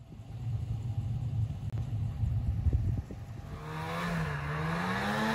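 Snowmobile engine running, first as a low rumble with a few knocks, then revving up about three and a half seconds in, its pitch rising and falling.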